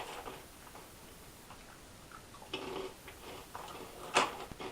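Crunchy potato-starch snack tubes being bitten and chewed: faint, irregular crunches, with one sharper crunch near the end.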